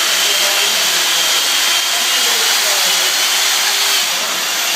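Chainsaw running steadily as it cuts into a block of ice, a loud, even noise that dips slightly near the end.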